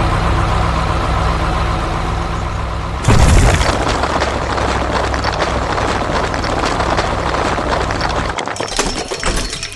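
Cartoon sound effects of a bulldozer's heavy engine running steadily, then a sudden loud boom about three seconds in. A dense rumble of crashing rubble follows and breaks into scattered clattering crackles near the end.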